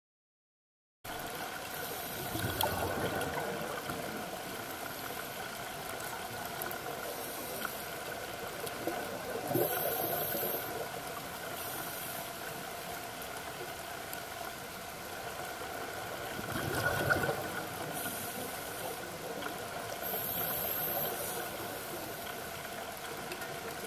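Underwater sound picked up by a diver's camera: a steady muffled water hiss that begins about a second in, with surges of scuba bubbles every few seconds.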